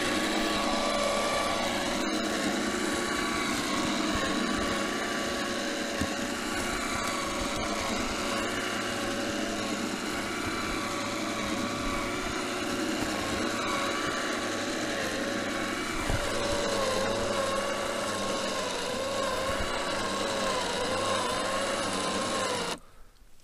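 Snowboard-mounted winch motor running steadily with a whine that wavers slightly in pitch as it hauls a loaded sled uphill, cutting off near the end.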